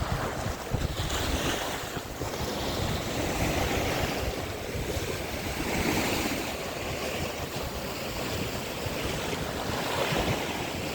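Sea waves washing onto the beach, swelling in surges every few seconds, with wind buffeting the microphone.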